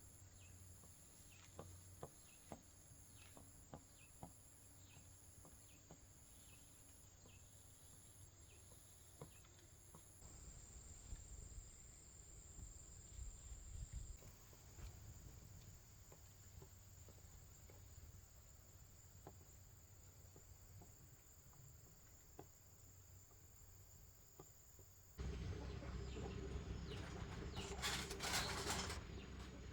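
Quiet rural outdoor ambience with a high, pulsing insect chirp and scattered small clicks. About twenty-five seconds in it turns louder, with a noisy stretch of rustling-type sound.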